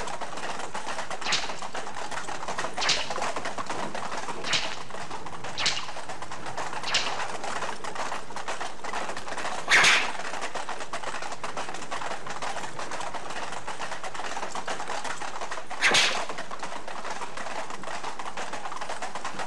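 Horse-drawn carriage on the move: a steady rattling noise, with a sharp crack every second or so for the first seven seconds and two louder bursts near ten and sixteen seconds in.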